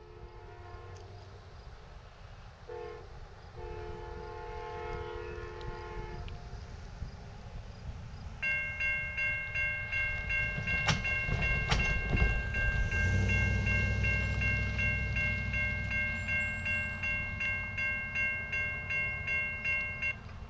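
Distant Amtrak locomotive horn sounding a short blast and then a long one. From about eight seconds in, the railroad crossing's electronic warning bell rings steadily, about two strokes a second, as the crossing activates for the approaching train; two sharp knocks come as a van rolls over the crossing.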